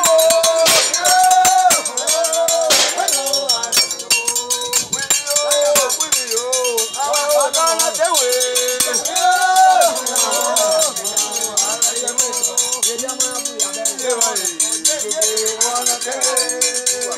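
A group of voices singing a Mende dance song in long, sliding held notes, over a fast, steady clinking of metal percussion.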